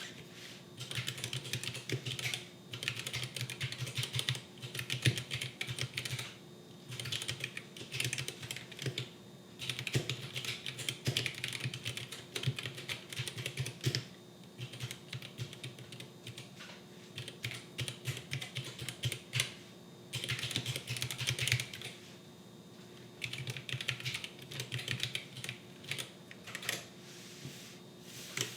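Typing on a Royal Kludge RK68 wireless mechanical keyboard: fast runs of key clacks, broken every several seconds by short pauses.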